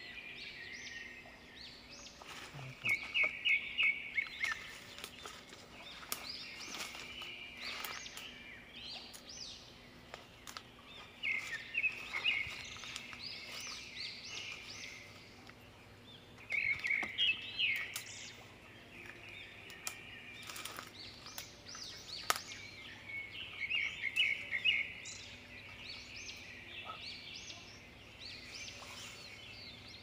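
Wild birds calling in repeated bursts of quick, high chirps every few seconds, with scattered crackles of dry leaves and twigs as someone walks through dense undergrowth.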